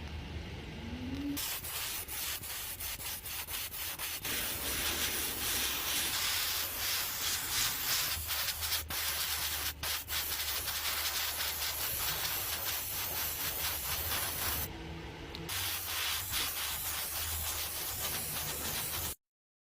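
Sanding: a dense, steady hiss with frequent short scratchy strokes, changing abruptly twice, then stopping suddenly shortly before the end.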